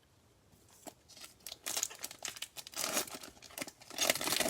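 Prizm basketball card pack wrapper being torn open and crinkled by hand, in irregular crackly rips that start about half a second in and are loudest near the end.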